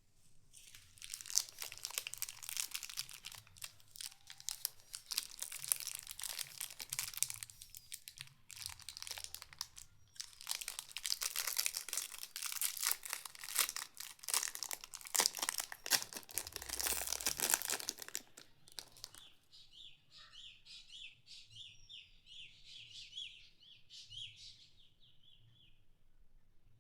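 Crinkling and tearing of a chocolate bar's plastic wrapper as it is opened, a dense run of crackles that stops about nineteen seconds in.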